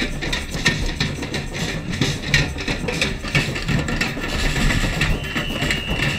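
Samba drums being played in a street parade: irregular drum hits over a dense low rumble, with a steady high tone coming in about five seconds in and holding.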